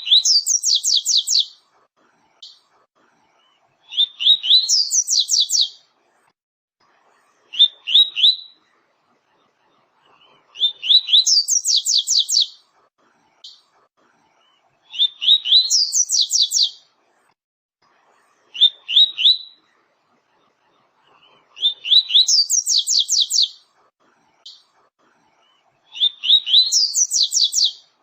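Seedeater (papa-capim / coleiro) singing its 'tui-tui' song: loud phrases repeated every three to four seconds, each a few rising notes followed by a quick run of high, falling notes, with a few shorter phrases between them.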